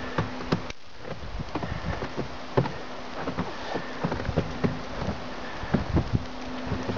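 Falling snow ticking and pattering irregularly on the deck and microphone, over a steady hiss, with a faint steady hum underneath.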